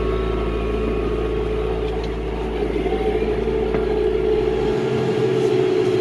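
John Deere 5100E tractor's diesel engine running steadily under load while pulling a round baler, heard from inside the cab.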